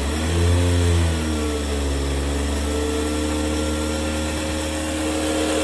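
Oster Pro 1200 blender's 1200-watt motor running, spinning up over about the first second and then holding a steady whir. Not too loud.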